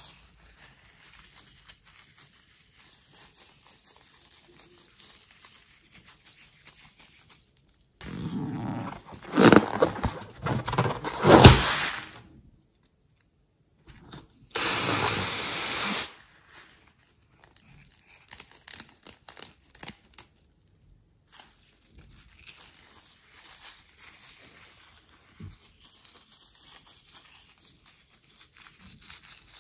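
Slime-filled rubber balloons being cut with scissors and squeezed out onto a tray of slime. Soft sticky handling sounds run throughout. Some 8 to 12 seconds in there is a loud stretch of squelching with two sharp cracks, and at about halfway a steady hiss lasts a second and a half.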